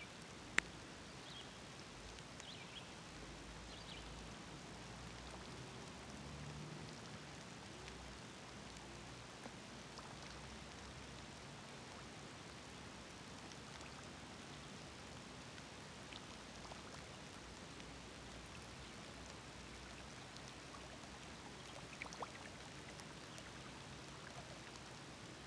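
Faint steady hiss of water outdoors, with scattered small ticks and one sharp click about half a second in.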